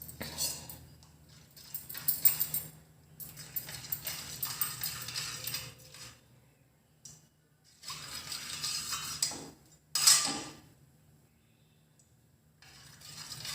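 Metal utensils clinking and scraping against a kadhai on the stove as ghee melts in it. The sounds come in a few separate stretches, with a sharp clink about ten seconds in and a faint steady hum underneath.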